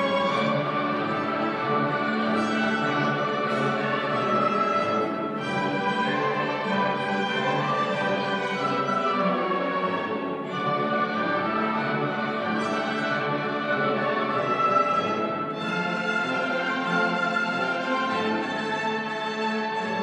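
School orchestra playing a classical piece live, bowed strings to the fore, in long held notes and chords that shift every few seconds.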